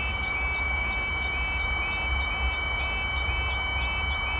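Level crossing warning alarm sounding while the barriers are down: a steady high tone with a short chirp repeating about twice a second, over a constant low rumble.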